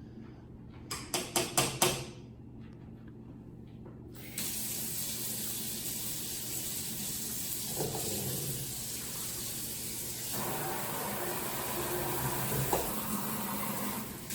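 About five quick, sharp knocks, then about four seconds in a steady rushing noise starts suddenly and keeps going: water running from a tap.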